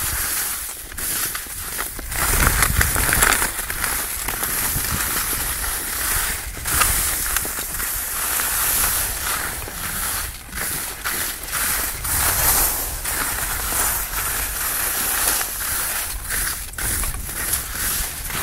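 Skis sliding and scraping over firm snow scattered with dirt and forest debris, a continuous hiss that swells and eases through the turns, with wind rumbling on the microphone.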